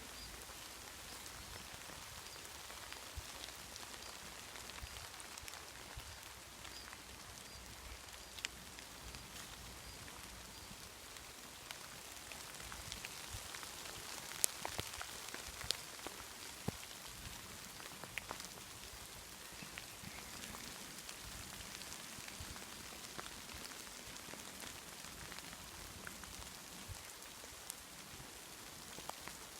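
Light rain falling on a forest, an even patter with scattered sharper drop ticks that grow busier about halfway through.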